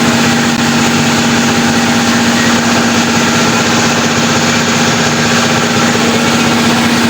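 Workshop air compressor running with a steady, loud mechanical hum, a constant pitched drone over a dense rushing noise.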